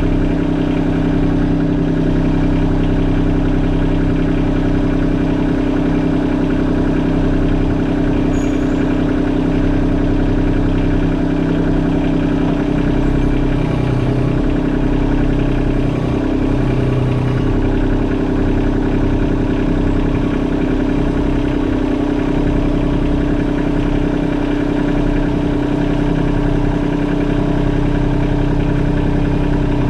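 Kubota LX compact tractor's diesel engine idling steadily, the deeper part of its hum shifting slightly about twelve seconds in.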